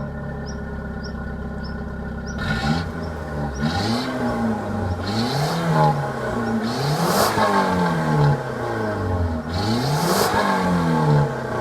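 Mitsubishi Airtrek with its stock exhaust idling steadily, then from about two seconds in revved over and over, the engine note climbing and falling back in repeated blips.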